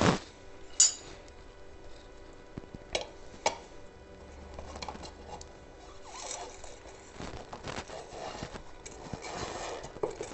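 Rubber tire being worked by hand onto an electric unicycle's wheel rim: scratchy rubbing and scraping of the tire bead against the rim, with scattered light clicks and knocks.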